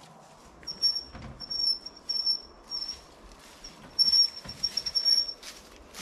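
Wheelbarrow being pushed over rough forest ground, its wheel giving short high-pitched squeaks again and again, mixed with knocks and rustling footsteps.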